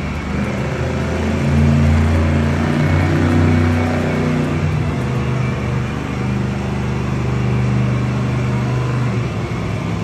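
Earth Shaker monster truck's supercharged V8 engine revving hard, its pitch climbing and dropping several times, loudest about two to four seconds in.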